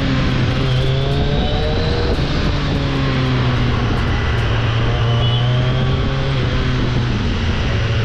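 Kawasaki Z900's inline-four engine running at a steady cruise under way, with wind noise across the microphone; its note drops slightly about two seconds in.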